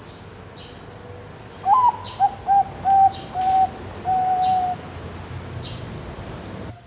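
Zebra dove (Bangkok perkutut) cooing: one song phrase of about three seconds, opening with a rising note and followed by a run of short, clear coos, the last ones held longer. Faint high chirps sound in the background.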